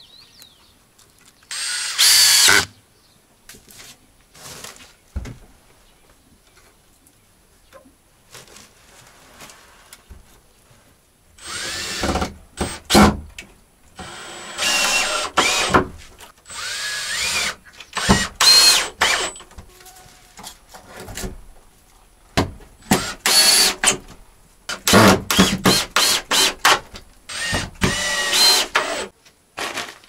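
Cordless drill-driver driving screws into wood in repeated bursts, the motor's pitch rising as it spins up each time. Near the end the bursts come in a quick run of short pulses.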